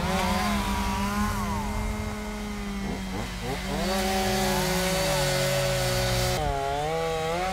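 Two-stroke chainsaw engines running and revving, their pitch rising and falling, over a second engine holding a steadier pitch underneath.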